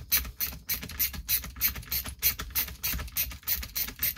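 Ratcheting screwdriver clicking rapidly and evenly, about five clicks a second, as a screw is backed out of a chainsaw's air filter cover.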